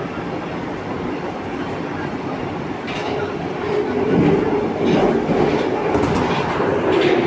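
Santiago Metro AS-02 train running, heard from inside the car: a steady rumble of wheels on rail that grows louder about halfway through, with a clickety-clack of wheel clicks roughly once a second.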